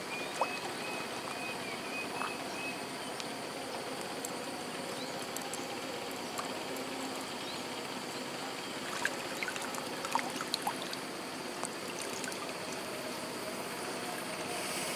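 Steady rushing, water-like hiss of outdoor ambience, with a few small clicks about nine to eleven seconds in.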